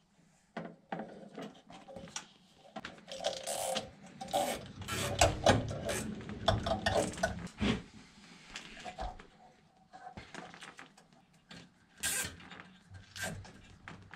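Nylon zip ties being pulled tight, their locking heads ratcheting in several quick runs of clicks, mixed with handling knocks.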